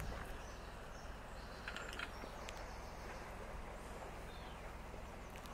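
Steady low outdoor rumble, with a few short bird chirps about two seconds in.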